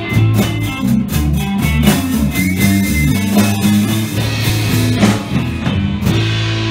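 Live blues-rock band playing with electric guitar, bass guitar and drum kit. About six seconds in, the drums stop and the band holds a ringing chord.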